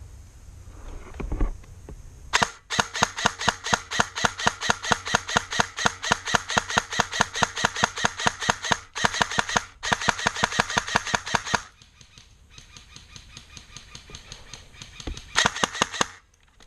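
Airsoft electric gun firing close by in rapid bursts: a long string of shots, a shorter burst after a brief pause, and another short burst near the end.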